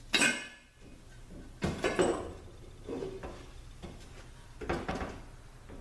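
Metal automatic-transaxle parts clanking as they are handled on the bench: one sharp, ringing clank just after the start, then several lighter knocks and clinks.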